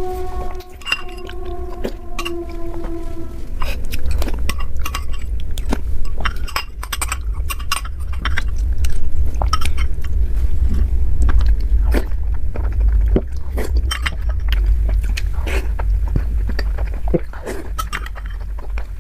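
Close-miked eating sounds: a spoon clinking against a dish and chewing of soft sweets, many short sharp clicks over a steady low rumble.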